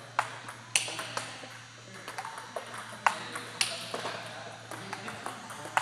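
Table tennis rally: the celluloid ball clicks sharply off the rubber-faced bats and bounces on the table, about one to two clicks a second at an irregular pace, with fainter clicks from other tables in play.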